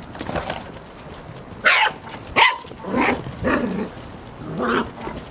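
Golden retriever puppies giving a string of short, high barks and yips, about five in all, the loudest a little over two seconds in.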